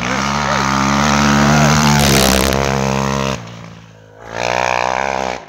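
Rally car engine revving hard as the car approaches on a snowy stage, with a short hiss about two seconds in. It eases off after a little over three seconds, then picks up again near the end.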